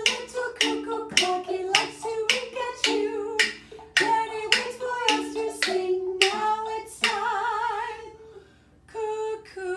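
A woman sings a simple children's song while tapping two wooden spoons together in a steady beat. The tapping stops about seven seconds in, and she holds a long wavering note, then sings again near the end after a short pause.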